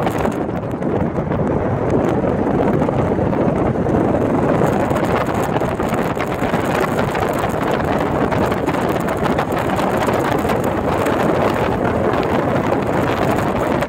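Steady rushing wind and tyre noise of a car moving at speed, heard from inside the car, with wind buffeting the microphone.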